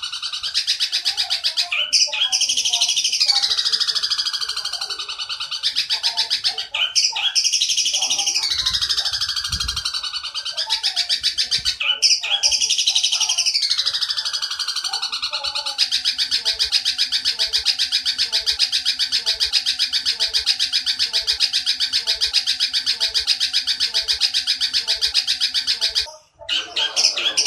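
Eurasian tree sparrow's long, rapid, buzzing chatter ('nyerecet'), played as a training track for caged long-tailed shrikes to copy. For the first half a high call that slides downward breaks in about every four seconds; after that the chatter runs unbroken for about ten seconds, with a brief gap near the end.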